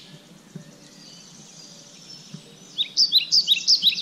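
Songbird singing: a quieter stretch, then, nearly three seconds in, a loud run of quick, sharp falling chirps, several a second.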